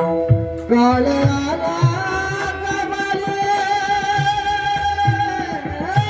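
A man singing a Marathi devotional song in a very high voice. He glides up about a second in and holds one long high note, with mridang strokes beneath.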